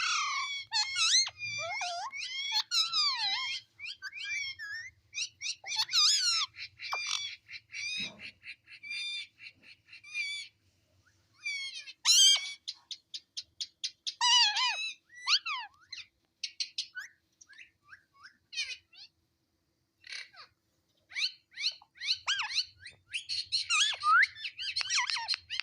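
Pet parrot chattering in bursts of squeaky chirps and gliding whistles, with two runs of quick rattling trills and a short, sharp loud call.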